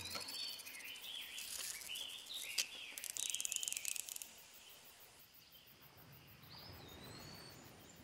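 Faint forest birdsong: whistled notes that rise and fall, heard several times. A rapid insect chirring trill joins from about two and a half to four seconds in, then dies away.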